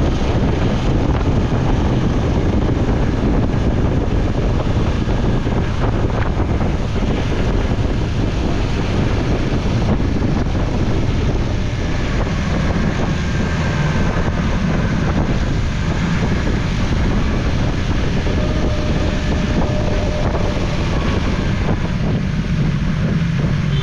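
Steady wind rush over a GoPro microphone on a BMW S1000XR motorcycle under way, with the bike's inline-four engine running underneath.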